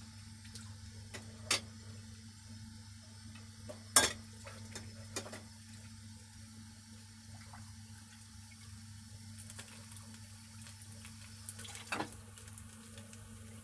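Faint kitchen background: a steady low hum with a light hiss, broken by a few sharp clinks of cookware. The loudest clink comes about four seconds in.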